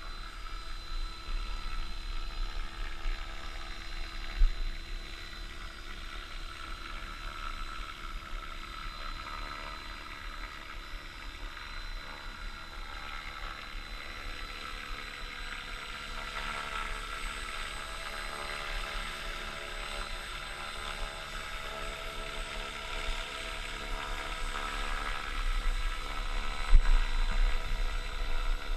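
Small unmanned model helicopter flying with a slung payload: a steady whine of its rotors and motor, growing louder near the end as it comes closer. Wind buffets the microphone in a few low thumps, the sharpest about four seconds in and near the end.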